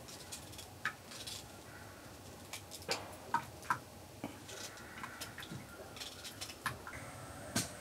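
Kitchen knife chopping a peeled raw green banana held in the hand: irregular soft clicks and taps as the blade cuts through and pieces drop into an earthenware pot.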